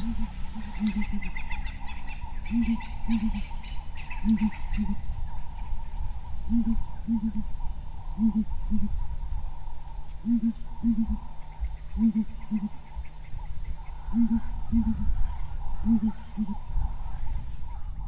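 Southern ground hornbills booming: deep hoots in phrases of four, sounded as two pairs, each phrase repeated about every four seconds.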